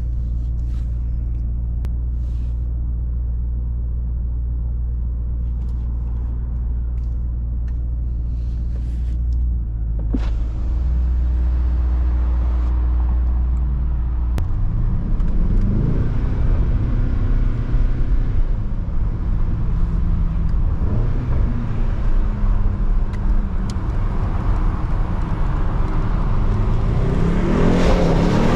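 Mercedes-AMG GT63 S's twin-turbo V8 running with a steady low rumble. From about halfway its revs rise and fall repeatedly as the car pulls away and accelerates, and it is loudest, climbing in pitch, near the end.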